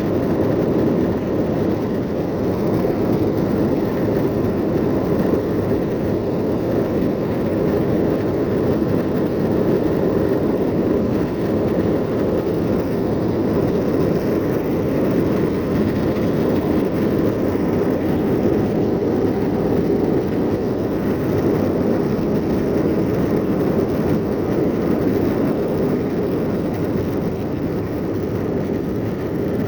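Airbus A321-231's IAE V2500 turbofan engines and airflow heard from inside the passenger cabin during takeoff: a steady, even roar with no changes in pitch.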